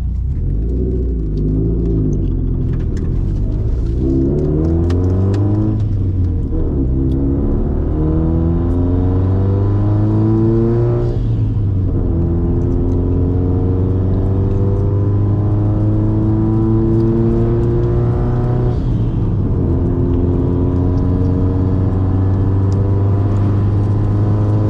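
2004 Subaru WRX's turbocharged flat-four engine accelerating through the gears. Its pitch climbs steadily in each gear and drops at upshifts about 6, 12 and 19 seconds in.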